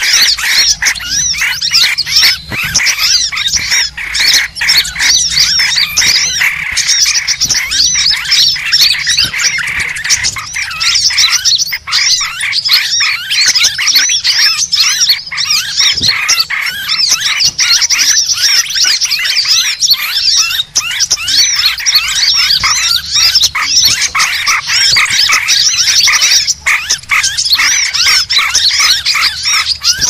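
Dense, loud chorus of many small birds chirping and twittering over one another without a break: a bird-lure (suara pikat) recording played to draw all kinds of birds in.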